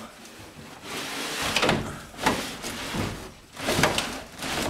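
Gear being shoved and scraped into the packed cargo space of a pickup truck: several scraping, sliding and bumping noises, a few of them with a sharper knock.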